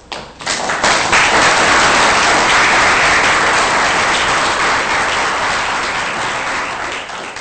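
Audience applauding, starting within the first second and tapering off near the end.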